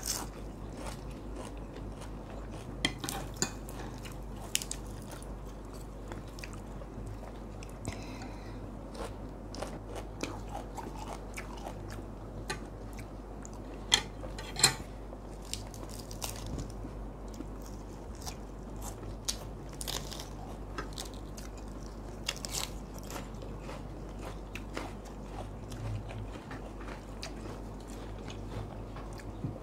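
Chewing and biting of crunchy food, with lettuce-leaf wraps among it, picked up close by a clip-on microphone. The crisp crunches come irregularly, and the two sharpest fall about 14 and 15 seconds in.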